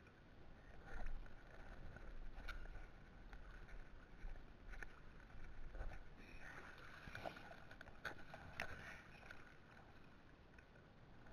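Shallow stream water sloshing and splashing as someone wades through it, with scattered small splashes and knocks.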